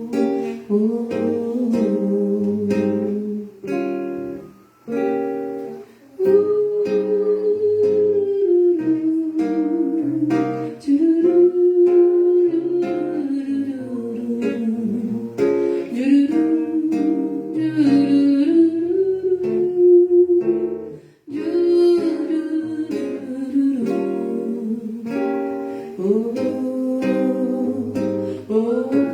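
Acoustic guitar playing chords, with a voice humming a slow melody over it.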